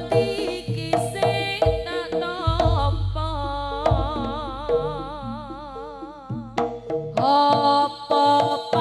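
Live jaranan music from an East Javanese ensemble: kendang hand-drum strokes and deep low booms under a held, wavering melody line. The drumming thins out in the middle and comes back strongly near the end.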